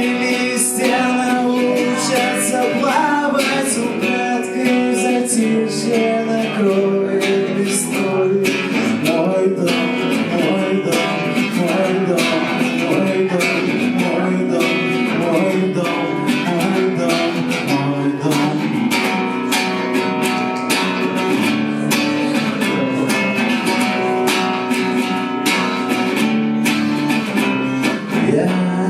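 Live music: a guitar strummed in a steady rhythm through a song.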